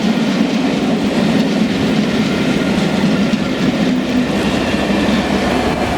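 A passenger train's coaches running past at speed, wheels rumbling and clattering on the rails, with the train's trailing Class 67 diesel locomotive coming by.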